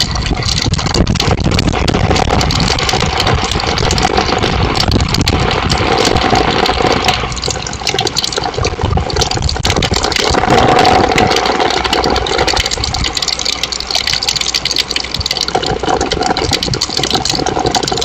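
Steady rain falling on a patio, a dense patter of drops with no break.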